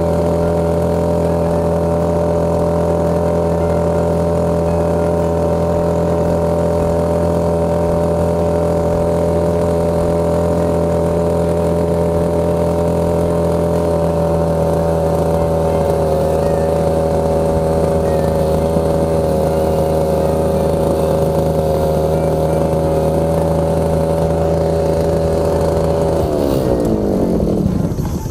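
An engine running steadily at a constant speed, then slowing down and dying away near the end as it is throttled back or shut off.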